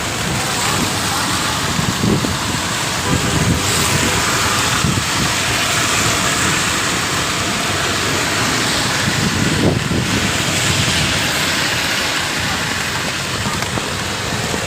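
Steady rain and wet-road noise heard from a moving cycle rickshaw, with the low rumble of passing traffic swelling now and then.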